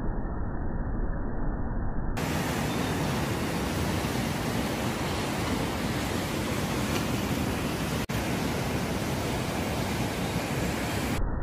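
Steady, even rushing noise, like surf or wind, muffled for the first two seconds and then full and bright, with a brief break about eight seconds in.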